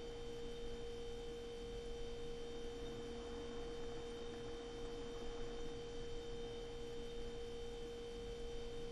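Steady electric hum of a vending machine: one constant mid-pitched tone with fainter higher and lower tones over a low hiss.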